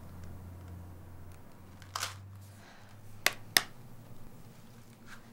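Two sharp clicks about a third of a second apart, with a softer rustle or breath-like hiss about a second before them, over a steady low hum of room tone.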